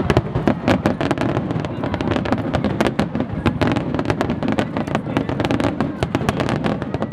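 Aerial firework shells bursting in quick succession: a dense crackle of many sharp reports over a low rumble.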